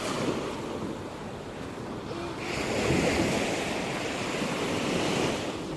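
Sea waves washing ashore: a steady rush of surf, with one wave swelling louder about halfway through and running for a few seconds before falling away.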